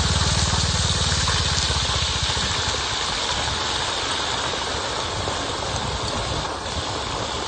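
Deep-frying oil sizzling and bubbling hard as a basketful of crickets is tipped in. The frying eases a little over the first few seconds, as a low rumble beneath it fades.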